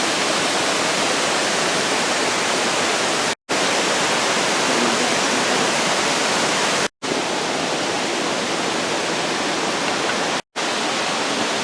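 Waterfall rushing: a steady, dense roar of falling water. It is broken by three brief silent gaps, each about three and a half seconds after the last.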